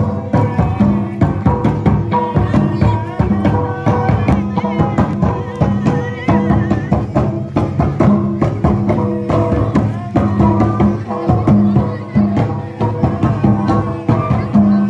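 Traditional folk dance music, with drums beating a steady, dense rhythm under a repeating melody.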